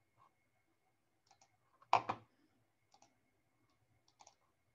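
Computer mouse clicks: scattered faint clicks, with a louder pair of sharp clicks about two seconds in.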